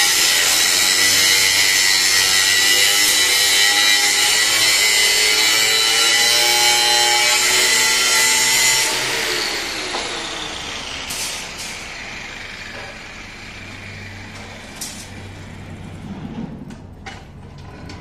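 Handheld angle grinder with an abrasive cut-off disc cutting steel rebar: a loud, steady, high-pitched grinding whine. About nine seconds in, the grinder is switched off and winds down, its pitch falling. A few light knocks follow in the quieter remainder.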